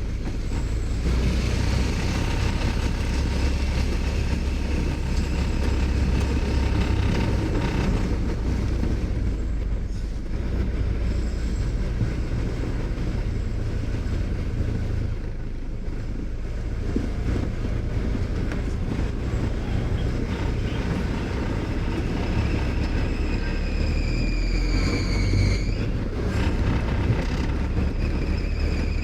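A road vehicle driving along with a steady low rumble, over which a thin high squeal runs. The squeal falls in pitch and cuts off suddenly about twenty-six seconds in.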